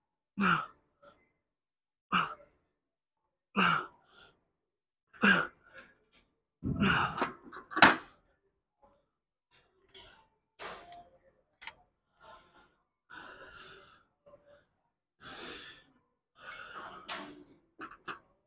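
A man breathing out hard in short bursts, about one every second and a half, in time with the reps of a lat pulldown warm-up set. A louder breath and a sharp knock come about eight seconds in, followed by softer breaths.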